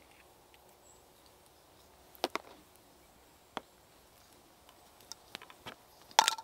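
A handful of sharp knocks and clicks against a quiet background: two close together a little over two seconds in, another a second later, then a few small ones, and the loudest near the end, a clink with a brief ring.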